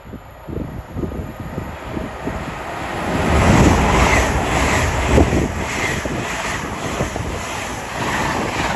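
LNER Azuma (Hitachi Class 800-series) high-speed train passing through the station at speed: a rush of wheels and air that builds, is loudest about four to five seconds in, and carries a steady repeating beat as the carriages go by. Wind buffets the microphone.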